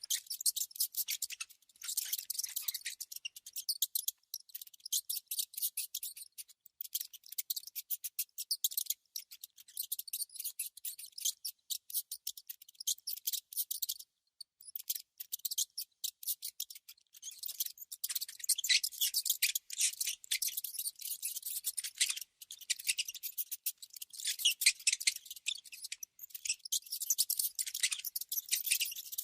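Mouse sounds: dense runs of rapid, high-pitched clicking and scratching, broken by brief pauses.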